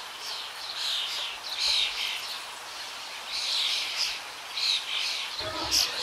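Many birds chirping and chattering together, a dense run of short, high, overlapping calls several times a second.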